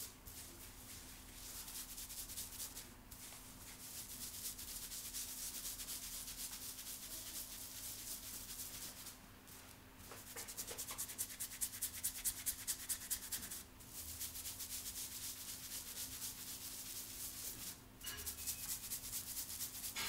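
Fingertips scratching and rubbing through long hair against the scalp in a head massage: a rapid, fine scratchy rustle that stops briefly a few times, with a louder stretch of rhythmic strokes midway.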